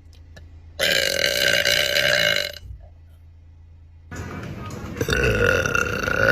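A woman letting out two long, loud burps: the first starts suddenly about a second in and lasts nearly two seconds, and the second starts a few seconds later and grows louder toward the end.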